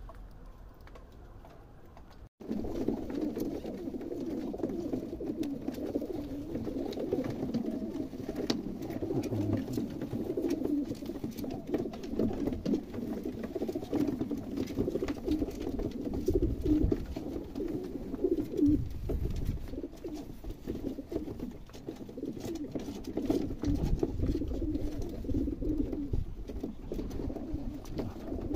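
Many pigeons cooing at once in a continuous, overlapping chorus, with scattered faint clicks. The cooing cuts in suddenly about two seconds in, after a quieter stretch.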